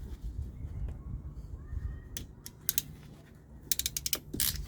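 Sharp metallic clicks and snips from hand tools working on vehicle wiring: a couple of single clicks, then a quick run of them near the end, over a low rumble.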